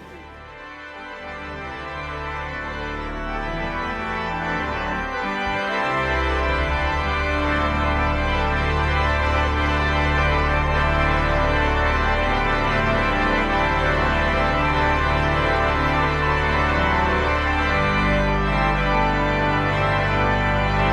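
Organ music: held chords that swell in over the first few seconds, with deep bass notes coming in about six seconds in.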